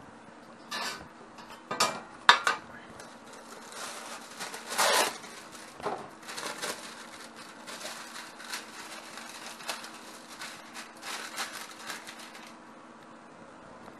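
Metal tray clanking against the counter and sink, a few sharp knocks with the loudest about two seconds in, then rustling and crinkling as a sheet of lining is unrolled and pressed into the tray.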